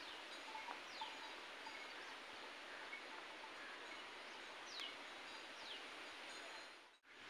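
Quiet outdoor forest ambience: a steady hiss with several short, falling bird whistles and a few brief chirps. The sound drops out for a moment near the end.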